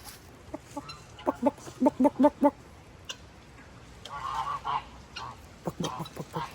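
Geese honking: a run of short, quick calls, then further bursts of honks later on.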